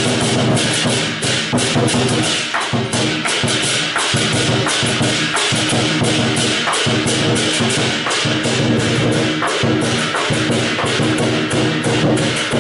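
Lion dance percussion: a large Chinese lion drum beaten with sticks and hand cymbals clashing in a fast, steady rhythm.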